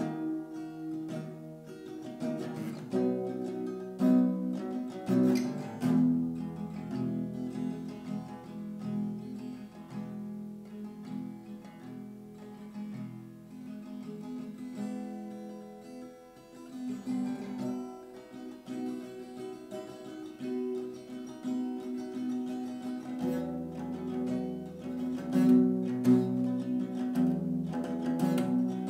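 Background music played on acoustic guitar, with plucked notes sounding throughout.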